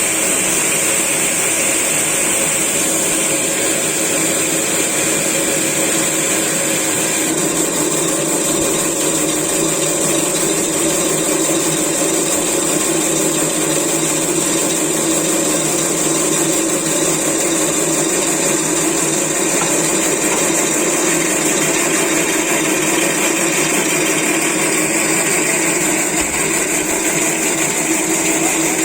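Builder's tower hoist's electric winch motor running steadily, with a constant whine.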